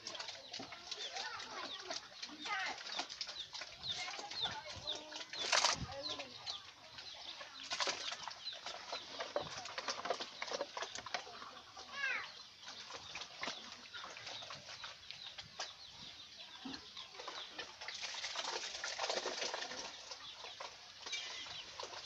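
Farmyard sounds: many short bird chirps and chickens clucking, over scattered knocks. A louder single knock comes about five and a half seconds in.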